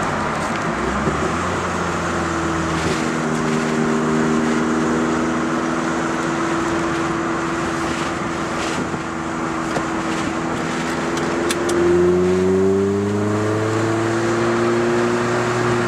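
Opel Kadett GSI's 2.0-litre eight-valve engine and tuned exhaust heard from inside the cabin while driving, over road noise. The engine note drops at the start and holds steady, then climbs as the car accelerates about twelve seconds in, and levels off again.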